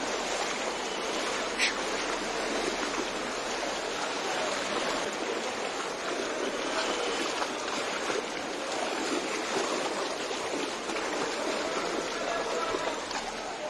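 Fast-flowing floodwater rushing steadily through a street and splashing around wading legs. One brief sharp sound comes about two seconds in.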